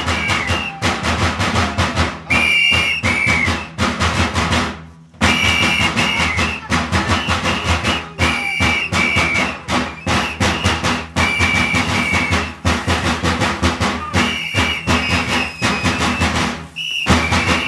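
Drums beaten in a fast, steady rhythm for a Romanian bear-costume dance, with short, high, shrill tones recurring over the beat. The sound drops out briefly about four to five seconds in.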